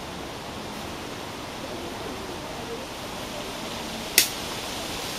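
Steady outdoor background hiss with one sharp click about four seconds in.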